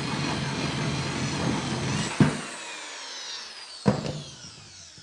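An electric power tool's motor running steadily, then switched off about two seconds in and winding down, its whine falling in pitch as it slows. There is a sharp knock as it is switched off and another near four seconds.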